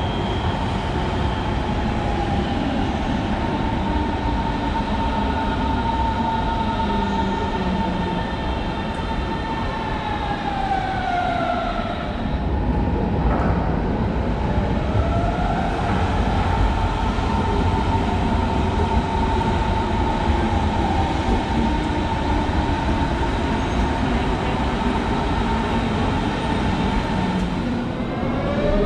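Electric trains' traction motors whining over a steady rumble of the trains in the station: the whine falls in pitch as a train brakes to a stop about ten seconds in, then rises again as a train pulls away, and climbs once more near the end.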